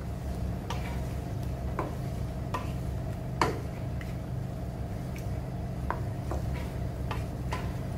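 A wooden spatula stirring chicken pieces in sauce in a nonstick wok, with scattered scrapes and taps against the pan and one louder knock about three and a half seconds in, over a steady low hum.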